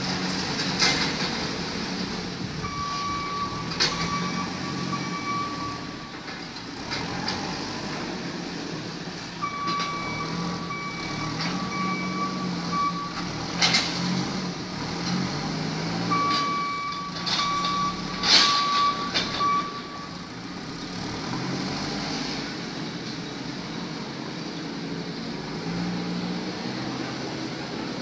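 Diesel engine of a heavy construction machine running under load, its reversing alarm beeping in three separate spells. Sharp clanks break in now and then, the loudest about two-thirds of the way through.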